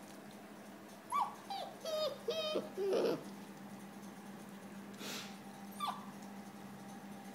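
Alaskan malamute puppy whimpering in its sleep: a run of about five short, high whines that fall in pitch, some of them wavering, then a soft breath and one more brief whine near the end.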